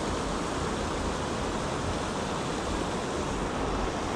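Steady rush of creek water running over a shallow, rocky riffle.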